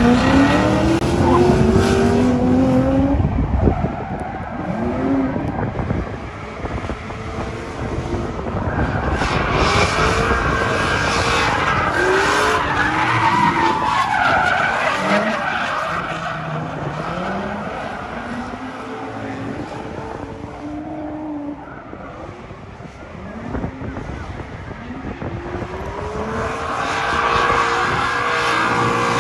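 Two drift cars, a red Ford Mustang and a blue coupe, sliding in tandem. The engines rev up and drop over and over as the drivers work the throttle, under a loud tyre screech and hiss that swells about a third of the way in and again near the end.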